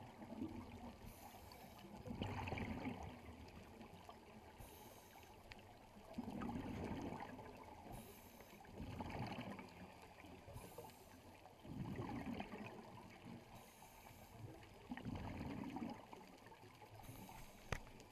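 Scuba diver breathing through a regulator, heard underwater: a short hissing inhale followed by a rushing, gurgling burst of exhaled bubbles, repeating about every three seconds.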